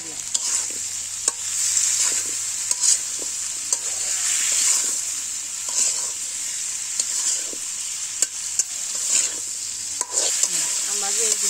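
Mango pieces frying and sizzling in oil in a metal karai, stirred and turned with a metal spatula that scrapes and clacks against the pan about once a second over a steady hiss.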